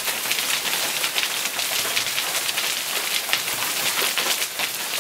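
Hail and rain pelting down in a hailstorm: a steady, dense clatter of many small hailstone impacts over the hiss of rain.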